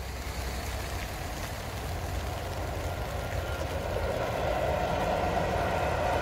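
KTX-Sancheon high-speed electric train approaching and passing at speed, its running noise growing steadily louder, most plainly from about four seconds in.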